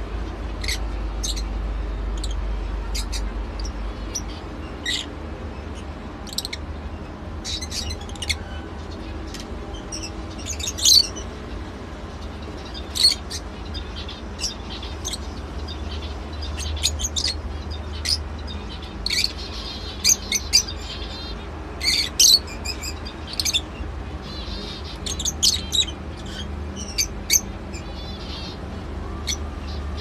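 A cage of lovebirds chirping: many short, sharp, high-pitched chirps at irregular intervals, growing busier and louder from about a third of the way in. A steady low hum runs underneath.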